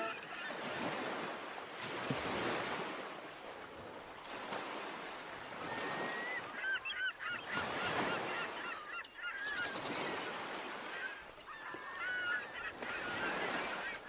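Ocean surf washing in and out in slow swells, with birds calling in clusters of short cries twice, about halfway through and again near the end.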